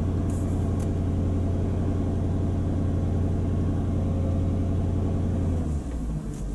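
Mercedes AMG 55 V8 engine running steadily in gear under load. About five and a half seconds in, the note drops and changes as the gearbox is shifted back into neutral.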